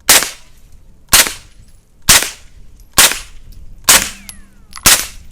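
Six suppressed 9mm subsonic shots from a PTR 9 roller-delayed carbine, fired one at a time about a second apart through a lightweight titanium AB Suppressor F4 Phantom. Each is a sharp crack with a short tail, quiet for 9mm.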